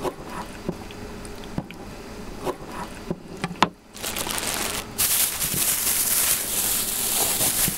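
A kitchen knife cutting raw liver, with a few light taps on a wooden cutting board and a sharp clack as the knife is laid down a little before halfway. Then a thin plastic bag rustles and crinkles steadily as it is handled.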